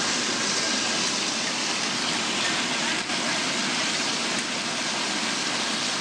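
Stainless steel air-bubble vegetable washing machine running: water in its tank churning and bubbling vigorously around the vegetables, a steady rushing noise.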